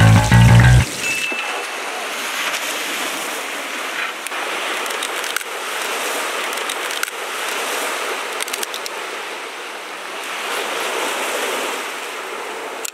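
Sea waves washing onto the shore: a steady rushing noise that swells and eases, with a few faint brief clicks. Background music ends about a second in.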